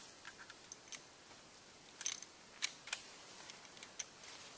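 A handful of sharp metallic clicks, spaced irregularly, from a bolt-action hunting rifle being handled as cartridges are pushed down into it and the bolt is worked over them.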